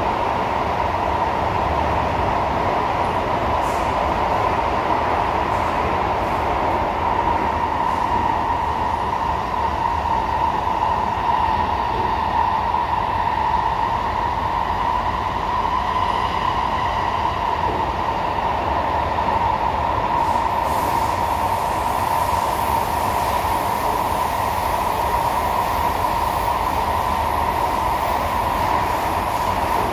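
An SMRT C151A metro train running, heard from inside the passenger car: a steady drone of wheels and running gear that holds an even level throughout. A faint higher whine comes in briefly about halfway through.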